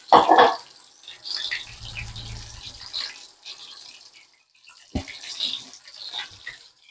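Kitchen handling noises while fish is being cooked and served: light clinks and rustles, a short low hum, and a sharp knock about five seconds in.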